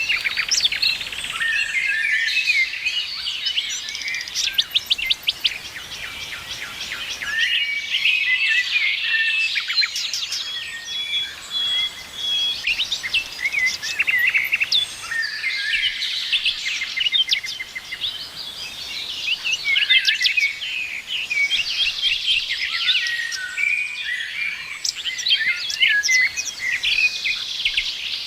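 Several songbirds singing and chirping at once, a dense chorus of overlapping chirps, whistled notes and rapid trills.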